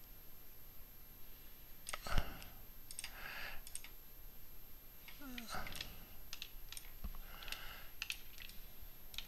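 Scattered clicks of a computer mouse and keyboard, about a dozen, with a louder knock about two seconds in.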